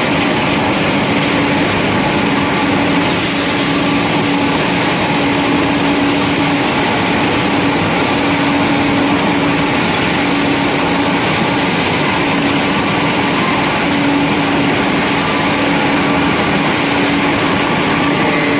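Pellet mills running in a factory: loud, steady machine noise with a constant hum underneath.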